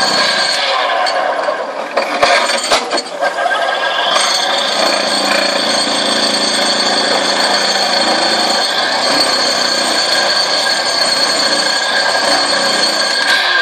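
Vibro impact ripper on a 15-ton excavator working rock: a steady, loud mechanical clatter with metallic ringing, and a few sharp knocks about two to three seconds in.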